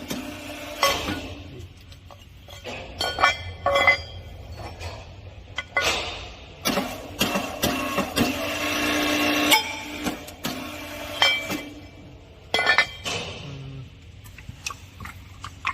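Hydraulic pump of a portable punching machine running with a steady hum for about three seconds and stopping at a sharp crack, amid repeated metallic clinks and knocks from the steel workpiece and tooling being handled.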